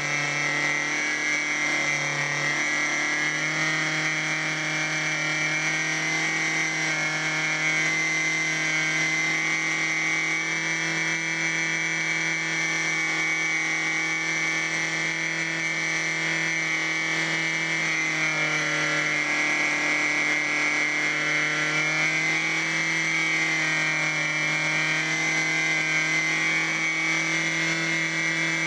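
Cox .049 model engine converted to diesel running (compression-ignition with an aluminium compression disc), turning a small DC motor as a generator. It runs steadily at high speed, its pitch stepping up slightly a couple of seconds in and sagging a little about two-thirds of the way through.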